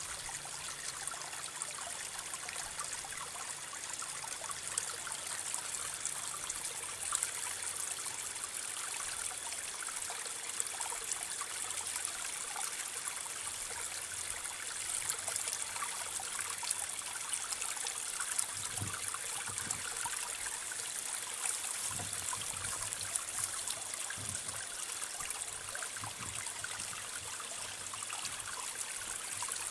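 Steady hissing background noise with a faint fine crackle, like running water, and a few soft low thumps in the second half.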